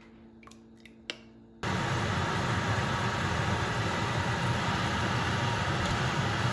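A few light clicks of a spoon in a bowl of starch water, then, about one and a half seconds in, hot oil starts sizzling loudly and steadily as pinwheel samosa pieces deep-fry.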